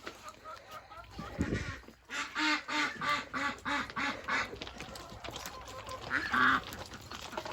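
Ducks quacking: a rapid run of loud quacks, about four a second, begins about two seconds in, and a louder quack comes near the end. Softer, higher calls are heard at the start.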